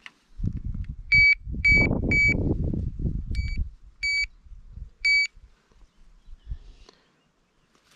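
Battery-powered electronic carp bite alarm beeping six times at uneven intervals while the rod is handled on it. A low rumble sits underneath the first few beeps.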